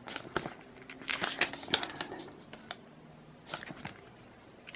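Pages of a printed paper user manual being leafed through by hand: short papery rustles and flicks, in three or so small clusters.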